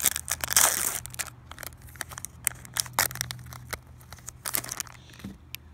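Foil-lined hockey card pack wrapper torn open by hand: a long rip about half a second in, then crinkling and sharp crackles of the wrapper as it is pulled apart to get at the cards, dying down near the end.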